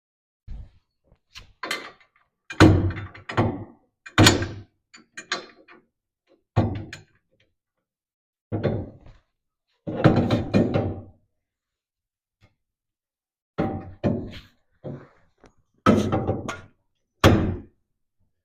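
Irregular knocks and clunks of heavy metal front-suspension parts being handled and struck, about a dozen separate hits, some in quick clusters, with gaps between.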